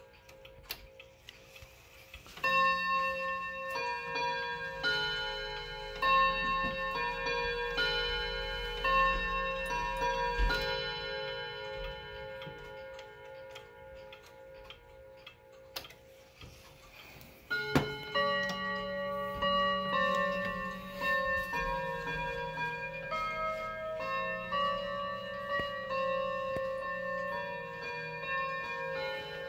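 President chime wall clock playing a chime tune as its minute hand is turned round: struck, ringing notes from about two seconds in, dying away by about sixteen seconds. After a sharp click a second chime sequence starts, over the clock's ticking.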